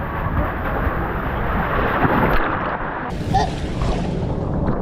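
Loud, low rumbling noise of wind and surf buffeting the microphone at the beach, changing abruptly about three seconds in.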